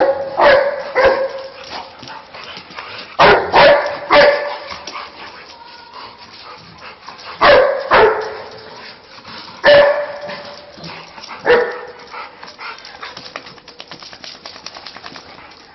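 A dog barking in short groups of one to three barks a few seconds apart, about nine barks in all.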